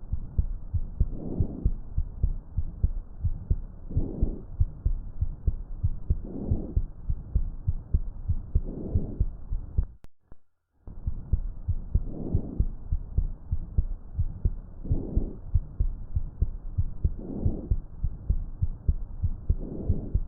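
Normal vesicular breath sounds through a stethoscope on the chest: soft, even breathing swells about every two and a half seconds, with low heartbeat thuds underneath and no wheeze or whistle. The recording breaks off briefly about halfway and resumes.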